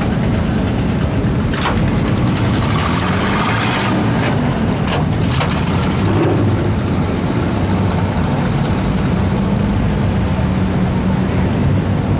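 Vehicle engine running at low speed while driving slowly on a dirt track, heard from inside the cab; its pitch rises and falls a little. A few sharp knocks or clunks come about a second and a half in and again around four to five seconds in.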